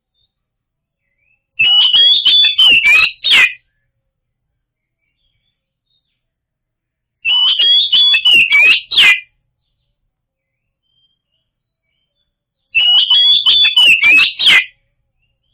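Oriental magpie-robin (kacer) singing a loud, fast whistled phrase with sharp clicks, about two seconds long. The same phrase comes three times, each separated by several seconds of silence, as in a looped lure recording.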